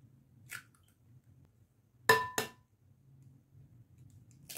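An egg knocked against the rim of a glass mixing bowl to crack it: two sharp clinks about a third of a second apart, each with a brief glassy ring. Faint shell and hand rustles before and after.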